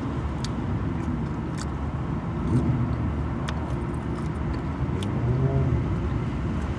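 Steady low car rumble heard from inside the cabin, swelling slightly a couple of times, with faint clicks of chewing.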